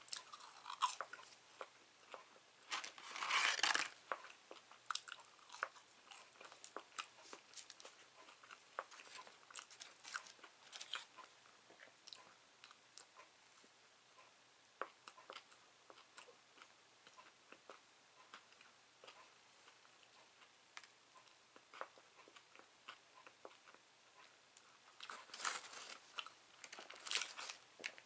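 Faint close-up chewing and biting of fast food, with many small scattered mouth clicks and crunches. Louder noisy stretches come about three seconds in and again near the end, when the drink is sipped through a straw from a plastic cup.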